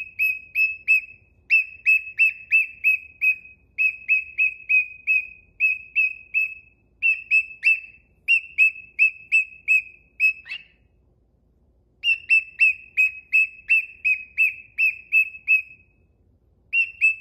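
A cockatiel giving runs of short, repeated high whistled chirps, about three a second, with pauses about two-thirds of the way through and again near the end.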